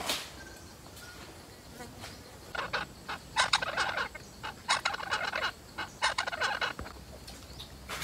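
Parrots chattering in four quick-fire bursts of rapidly repeated calls, starting about two and a half seconds in, each burst under a second long.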